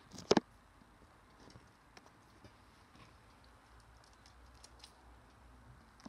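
Cockatiel moving at a shallow plastic water tray: one short loud burst of two quick hits about a third of a second in, then faint, scattered light ticks.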